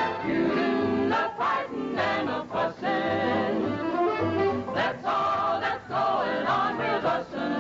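Music: several voices singing together over instrumental backing with a steady bass line.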